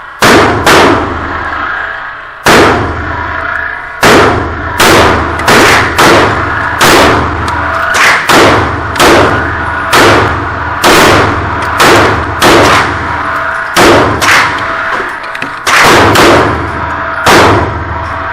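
Glock 43 9mm pistol firing a long string of single shots, about two dozen, mostly half a second to a second apart with a couple of longer pauses, each shot loud and sharp with a short ringing tail.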